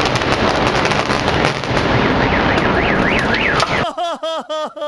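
A high-rise building collapsing in a demolition: a loud, continuous crashing rumble full of crackles, with a car alarm warbling rapidly up and down in the middle of it. Just before the end the crash cuts off abruptly, and a man wails in short, rhythmic sobs.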